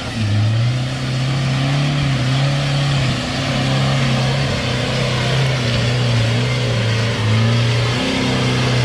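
Four-wheel-drive vehicle engine running hard under load, its pitch wavering up and down, over a steady hiss.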